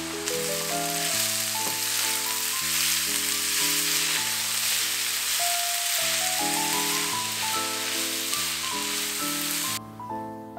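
Shredded cabbage frying in a hot pan, a steady sizzle that cuts off abruptly shortly before the end.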